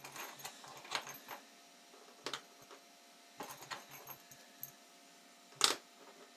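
Galvanized 3.5-inch steel nails clicking and clinking against each other as they are laid onto the stack one by one: a scattering of light metallic clicks, with one louder clink about five and a half seconds in.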